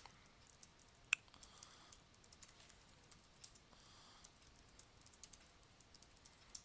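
Computer keyboard typing: faint, scattered keystrokes, with one sharper key click about a second in.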